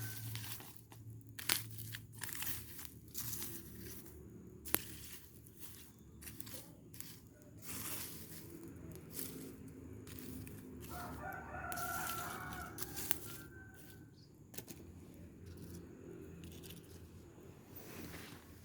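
A rooster crows once, about eleven seconds in, over scattered crackles and rustles from the trash fire and the debris being worked.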